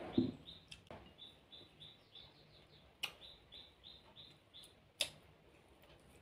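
A small bird chirping repeatedly in the background, about three short rising chirps a second. There is a soft thump just after the start as a glass mug is set down on the table, and a few sharp clicks from eating rice by hand off a plate.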